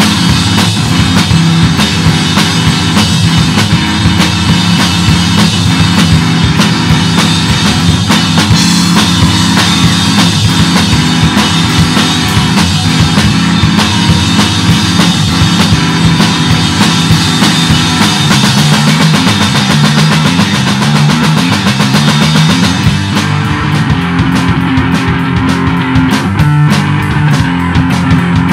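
Rock band recording: a drum kit and guitar playing loud and dense throughout. About three-quarters of the way through, the bright top end thins out.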